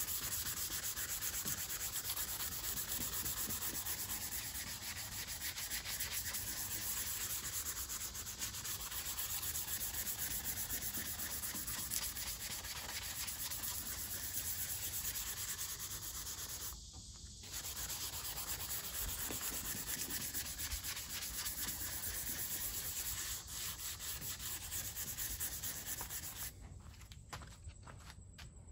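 Hand sanding a painted Cuda rear fender panel with 180-grit sandpaper on a sanding block: quick, steady back-and-forth scrubbing strokes scuffing the paint to give it a tooth for stripper. There is a brief pause about two-thirds of the way through, and the sanding stops shortly before the end.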